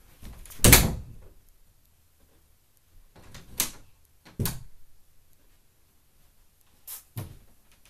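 Wooden interior door being swung and knocked about by a small child, with its knob and latch rattling: a loud bump about a second in, then a few lighter knocks and a pair of quick clicks near the end.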